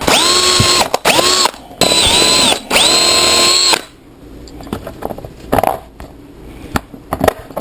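Power drill pre-drilling a hole in a scooter's battery cover. The motor whines in four short trigger pulls over about four seconds, dipping briefly in pitch as the bit bites. Light clicks and handling sounds follow.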